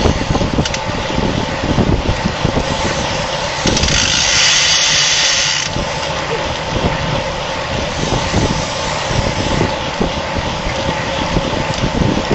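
Wind buffeting a bike-mounted camera's microphone while a road bike is ridden at race speed, with steady rolling and drivetrain noise underneath. About four seconds in, a high buzz lasts for about two seconds.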